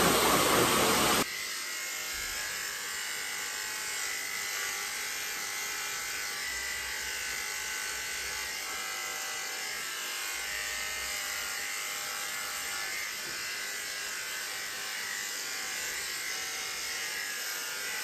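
A pet blow dryer blowing loudly, cut off abruptly about a second in. Then electric dog grooming clippers run with a steady buzz as they are worked over a small dog's head.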